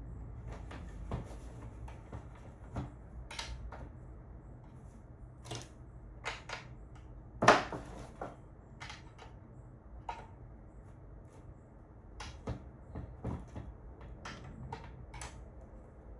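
Scattered light clicks and knocks of small hardware and panel parts being handled and fitted, with one sharper knock about seven and a half seconds in, over a low steady hum.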